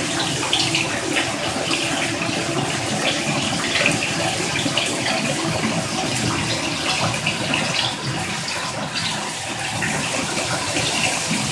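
Water spraying steadily from a DreamSpa LED shower head and splashing below.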